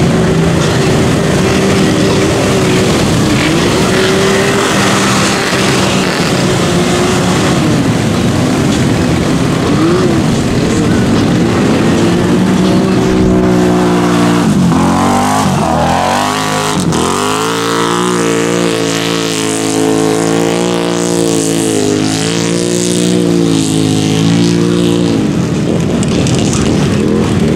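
ATV and side-by-side engines revving hard while churning through mud. The pitch wavers, drops sharply and climbs back twice about halfway through, then holds high and steady.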